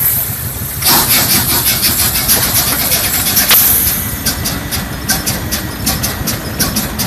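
Large nine-cylinder diesel engine starting. A loud hiss begins about a second in as it turns over. It then catches and runs with an even beat of exhaust pulses, about four a second.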